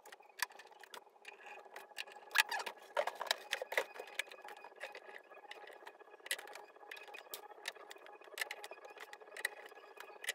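Irregular small metallic clicks and taps of machine screws being started into a mixing console's steel bottom panel with a Phillips screwdriver, with a cluster of sharper clicks a couple of seconds in. A faint steady hum runs underneath.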